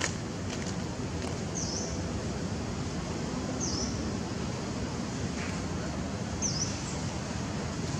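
Steady outdoor background noise with a small bird giving three short, high chirps a couple of seconds apart.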